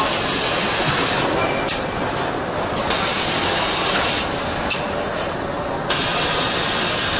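Car assembly-line machinery running with a steady mechanical din, broken by three hissing spells of about a second each and a few sharp clicks.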